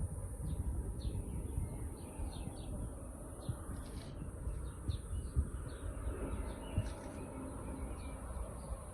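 Small birds chirping in short, repeated calls over a low, uneven rumble.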